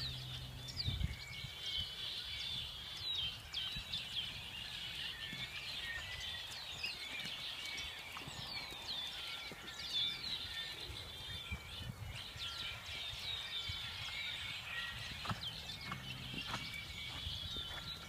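Many small birds chirping continuously, with quick overlapping calls that sweep downward in pitch. A few soft thuds of a horse's hooves on sand come near the end.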